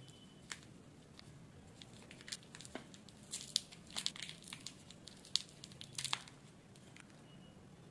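Candy wrappers crinkling and tearing as a wrapped sweet is opened by hand, its foil inner wrap peeled off. A cluster of sharp crackles comes between about two and six seconds in.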